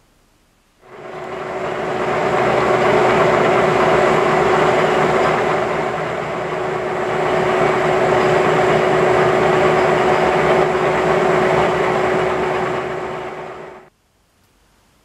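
Metal lathe running with its chuck spinning a steel workpiece, a steady whine over a rough mechanical noise. It starts about a second in and cuts off abruptly near the end.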